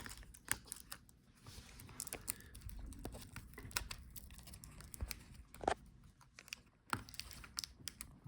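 Small irregular clicks and light scraping as ribbon-cable connectors are unplugged from a laptop motherboard, with a few sharper clicks about half a second in and around six and seven seconds in.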